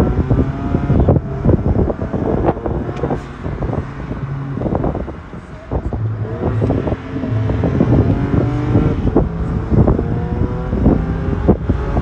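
BMW 335is twin-turbo straight-six engine pulling under acceleration, heard from inside the cabin, its pitch holding and stepping as the car drives. Wind buffets the microphone with many irregular thumps on top.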